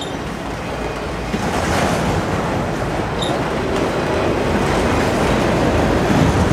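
Diesel freight train with BNSF and NS locomotives approaching on the rails, a steady rumble and rail noise that steps up about a second in and keeps growing louder.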